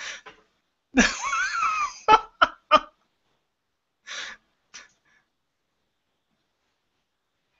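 A person laughing: a long wheezy laugh with a wavering pitch, then three short sharp bursts of laughter. It ends with two faint breathy gasps, after which the line goes dead.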